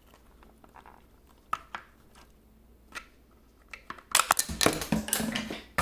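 Plastic parts of a food processor's safety lid and handle clicking and creaking as they are worked loose by hand, with a few sharper snaps; about four seconds in comes a louder run of clattering and rattling as the pieces come apart.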